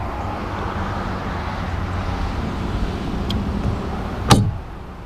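A small boat's motor hums steadily, with wind on the microphone. A single sharp click comes about four seconds in, and after it the rumble drops quieter.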